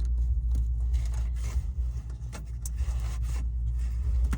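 Light scraping and small clicks of a golf cart's wiring-harness plug being handled and pushed into its connector, over a steady low rumble.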